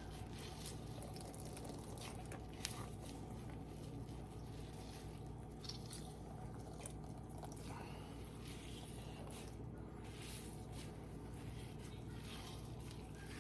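Faint squishing and dripping as water is wrung out of shredded zucchini squeezed in a cheesecloth, over a steady low hum, with a single sharp click a few seconds in.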